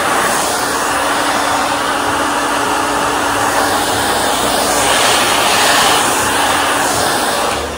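Hand-held hair dryer running steadily, blowing air onto two-strand twists to dry the mousse in them: a steady rush of air with a faint low hum underneath, cutting off at the very end.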